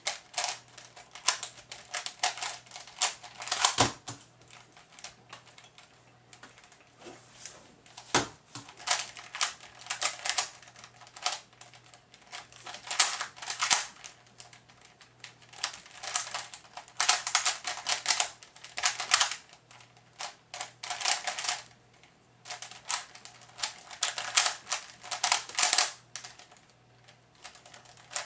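Type A 3x3 speedcube being turned fast by hand: rapid runs of plastic clicking and clacking broken by short pauses, the sound of a speedsolve. Two low knocks come about four and eight seconds in.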